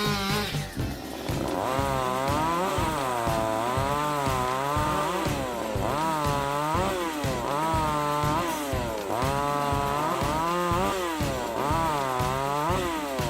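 Chainsaw engine cutting wood, its pitch dropping as it bogs in the cut and rising again, over and over about every second and a half.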